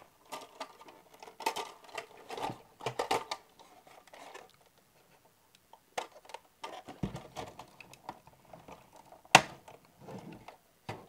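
Irregular clicks, taps and light rattles of hands handling a 1/18-scale RC truck's hard plastic body, with one sharp, loud click near the end as the plastic hood is opened.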